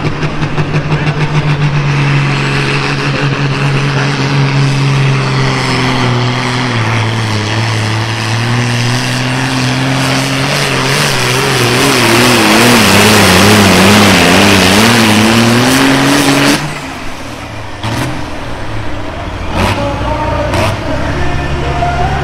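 Minneapolis-Moline pulling tractor's diesel engine at full throttle, dragging a weight-transfer sled down the track. Its pitch steps down partway through and wobbles up and down as the pull bogs toward the end. About sixteen and a half seconds in the engine is cut back sharply, ending the pull, and drops to a low idle.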